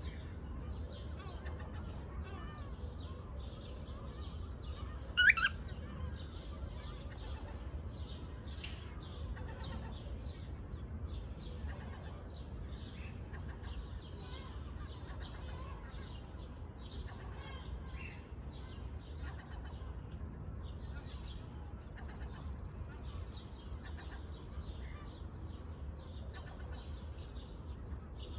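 A pet parrot chirping softly on and off, with one loud rising call about five seconds in, over a steady low hum.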